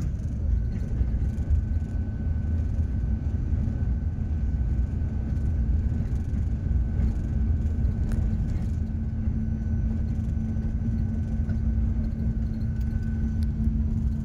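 Steady low road and engine rumble from a vehicle driving along a road, heard from on board, with a faint steady whine above it.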